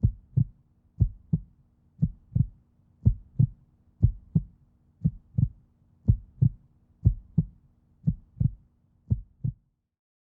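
Heartbeat sound effect: paired low thumps (lub-dub) about once a second, ten beats over a faint low hum, stopping shortly before the end.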